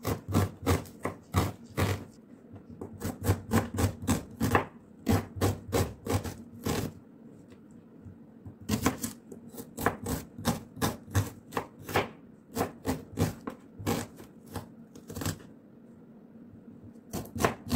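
Kitchen knife chopping an onion on a plastic cutting board: quick, even knocks at about four strokes a second, in runs with two short pauses, one near the middle and one near the end.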